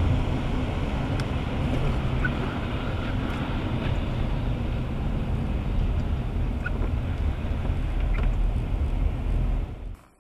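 Steady road noise heard inside a car driving on a wet, slushy highway: tyres hissing through standing water, with a few faint ticks. It cuts off abruptly near the end.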